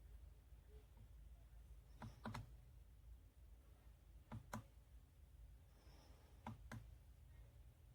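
Faint clicks in pairs, three pairs about two seconds apart, over near silence.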